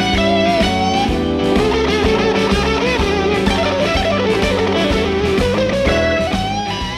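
Background music: rock with electric guitar, fading out near the end.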